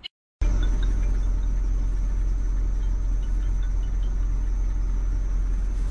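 Steady low rumble of a vehicle's engine and road noise, with a faint steady high whine over it, starting abruptly about half a second in.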